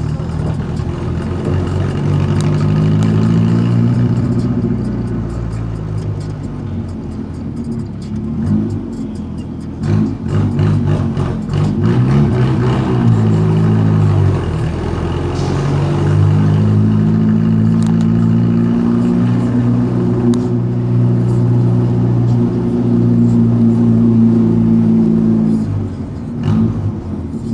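Volkswagen Gol's engine through a JK exhaust muffler, loud and rumbling as the car drives. The pitch climbs and drops again several times as it pulls through the gears, holds steady through most of the second half, then falls away near the end.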